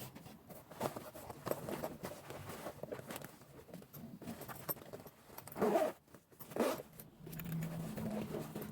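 Small handling sounds: a run of light rustles and clicks, with two louder scuffs a little past the middle.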